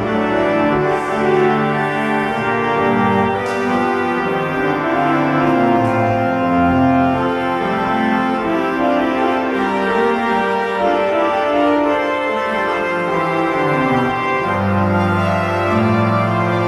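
Music of slow, sustained organ chords over a low bass line, the chords changing every second or two.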